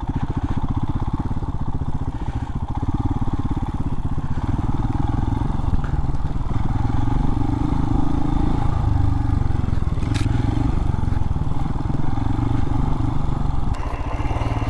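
Royal Enfield Himalayan's single-cylinder engine running at low speed as the bike is ridden slowly through tight off-road corners, its note shifting a little with the throttle.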